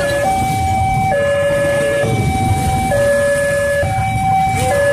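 Railway level-crossing alarm sounding a two-tone hi-lo siren, switching between a lower and a higher note about every second, over a low rumble.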